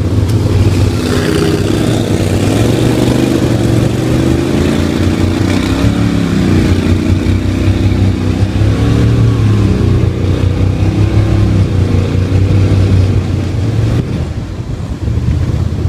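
Mud motor engine on an aluminium jon boat running hard under way, loud and steady, its pitch dipping and climbing back a couple of times as the throttle changes. It eases off near the end.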